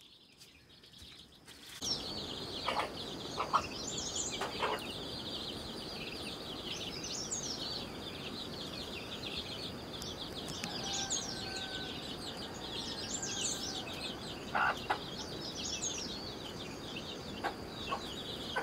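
Domestic chicks peeping almost without pause, with a hen clucking a few times. It starts about two seconds in, after a near-silent moment.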